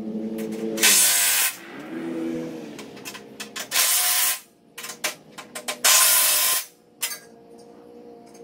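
Cordless power driver tightening bolts on a steel implement frame: short whirring runs of the motor that rise in pitch as it spins up, and three loud, harsh bursts of about half a second each as the fasteners are driven tight.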